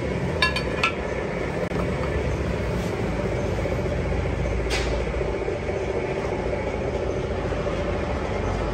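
Steady rumbling workshop background noise, with a few light metal clinks about half a second in and one more near five seconds as steel parts are handled.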